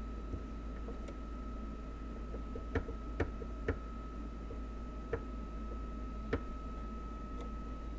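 Five light, sharp clicks spread over a few seconds as fingers handle the exposed needle-bar mechanism of a Juki HZL-27Z sewing machine, with its front cover off. Under them is a steady faint high whine and a low hum.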